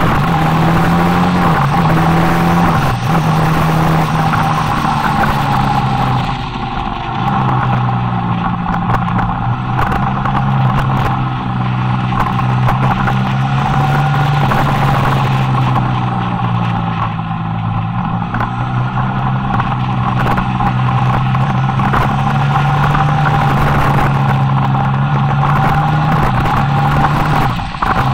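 Motorcycle engine running on a downhill mountain-road ride, its pitch rising and falling as the throttle opens and closes through the bends, with brief dips a few times. Wind rushes steadily over the microphone.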